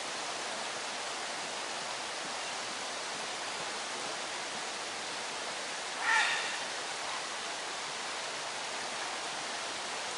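Steady hiss of outdoor background noise, with one short high-pitched call about six seconds in.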